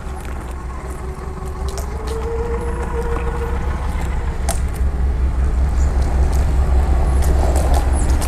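Magic Mobility Frontier V4 off-road power chair driving, its 800-watt rear drive motors whining as it pulls up onto concrete and crosses the lot, over a steady low rumble with scattered small ticks.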